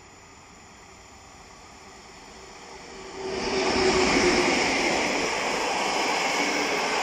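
PKP EP07 electric locomotive hauling a passenger train passes at speed. A rising approach rumble gets sharply louder about three seconds in as the locomotive goes by, then the coaches' wheels roll steadily over the rails.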